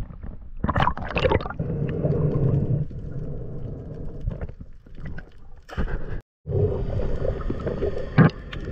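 Muffled underwater sound through a waterproof camera housing: water sloshing and gurgling in irregular swishes and rumbles, with a few short louder splashes. The sound cuts out for a moment a little after six seconds.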